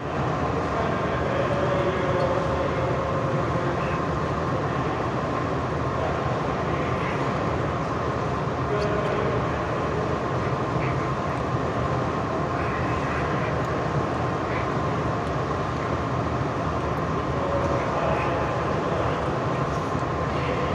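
Steady rushing ambience of an indoor pool hall, with a faint steady tone and distant voices in the background.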